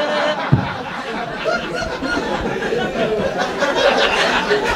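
Audience laughing and chuckling at a punchline.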